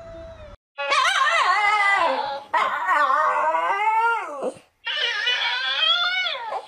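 A husky howls and 'talks' in long wavering yowls for a few seconds. A talking dancing-cactus toy then plays a similar wavering howl back, mimicking it.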